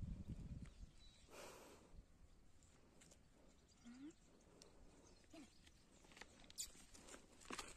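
Near silence: faint outdoor ambience with a few soft scattered ticks and two brief, faint rising squeaks about four and five seconds in.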